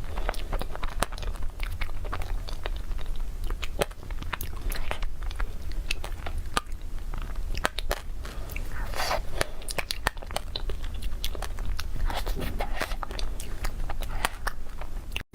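Close-miked eating sounds: crunchy bites and chewing of cake, a dense run of small sharp crackles, over a steady low hum.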